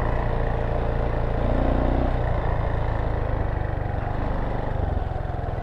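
Motorcycle engine running steadily as the bike rides along a dirt trail, its note rising briefly about a second and a half in.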